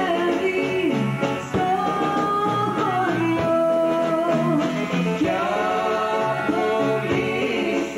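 Live singing by a woman through a stage microphone, over instrumental backing with a walking bass line.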